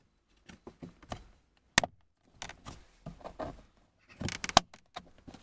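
Plastic door-handle trim piece being pressed back into its slot in a car door: scattered clicks and knocks, with a sharp snap about two seconds in and a cluster of knocks near the end.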